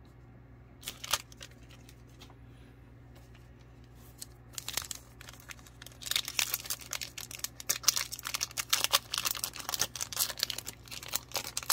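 Foil-lined wrapper of a Panini Donruss Optic football retail card pack being torn open and crinkled by hand: a couple of sharp crackles about a second in, then dense crinkling and tearing from about halfway through.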